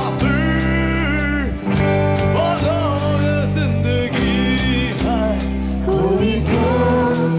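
Live rock band playing a song: a singer singing into a microphone over electric guitar, bass and a steady drum beat, amplified through the sound system.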